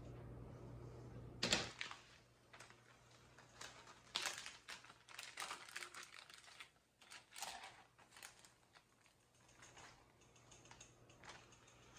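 Plastic zipper freezer bags crinkling and rustling in a few short bursts as they are opened and handled, with raw chicken thighs moved between them.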